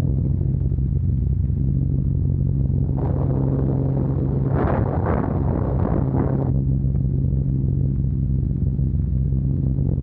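Short Stirling heavy bomber's engines, a steady low drone as heard inside the aircraft. From about three seconds in to about six and a half seconds, a louder rushing noise with a few pulses rises over the drone and then drops away.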